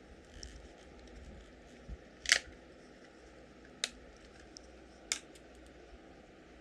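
Clear plastic blister pack being pried open by hand: faint crinkling with three sharp plastic snaps, the loudest about two seconds in and the other two a second or so apart after it.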